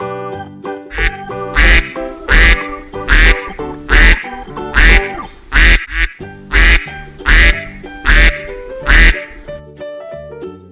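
A duck quacking about eleven times in an even rhythm, roughly one quack every 0.8 s, over cheerful background music. The quacks stop shortly before the end and the music carries on.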